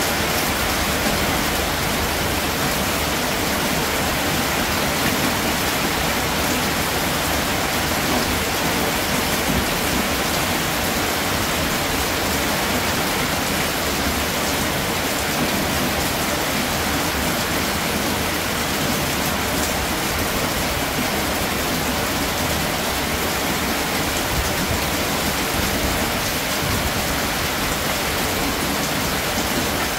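Steady rain falling, an even hiss of many drops with no single sound standing out.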